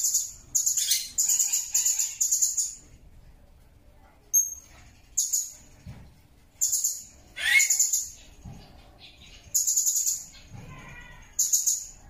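Blue-crowned hanging parrot (serindit) calling: very high, shrill chirps in quick runs, each run a second or less long, repeated about eight times with short pauses between.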